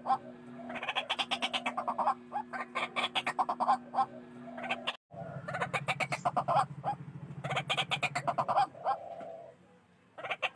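White-breasted waterhen calling: bursts of rapid, repeated croaking notes, each about a second long, one after another. A brief cut about halfway in, after which a low hum runs under the calls.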